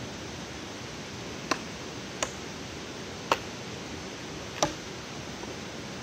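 Four sharp knocks on a wooden stake, unevenly spaced about a second apart, over a steady background hiss.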